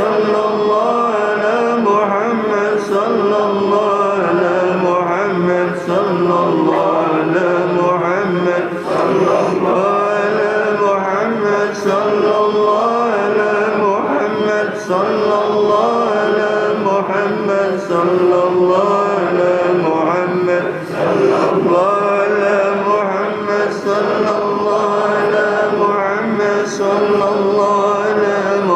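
Sholawat chanted in a sustained, melodic voice, the repeated blessing on the Prophet Muhammad drawn out in long held notes, with a light sharp accent about every three seconds.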